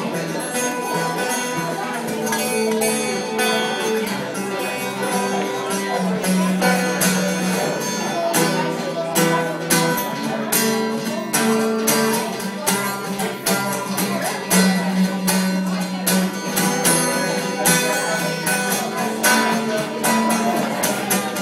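Amplified 1963 Gibson J-50 acoustic guitar played through a Fishman Rare Earth pickup: a fingerpicked blues passage, picked notes over held bass notes.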